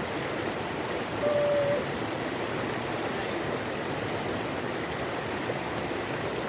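Steady rush of river water running over a small waterfall. A short, level note sounds for about half a second, a little over a second in.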